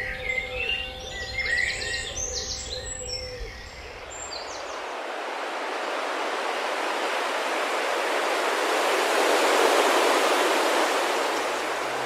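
Songbirds chirping and trilling for the first few seconds. After that comes a steady, growing rush of wing noise from a huge starling murmuration, which swells toward the end.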